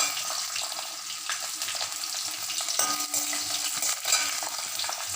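Small onions and dry red chillies sizzling in hot gingelly oil in a kadai, with a spatula stirring and scraping the pan now and then.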